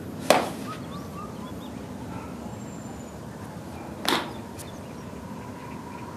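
Two sharp whooshing snaps about four seconds apart, from fast, explosive Chen-style tai chi strikes, over a steady outdoor background.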